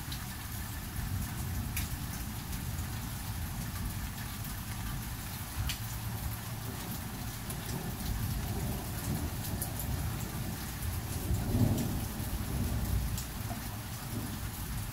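Steady rain falling, with scattered sharp drop ticks, and a low rumble of thunder that builds in the second half and peaks about three-quarters of the way through before rolling off.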